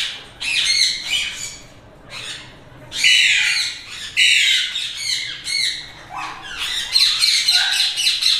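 Brooding Alexandrine parakeet hen giving a string of harsh squawks, louder and nearly unbroken in the second half: defensive calls as she guards her eggs against a hand in the nest box.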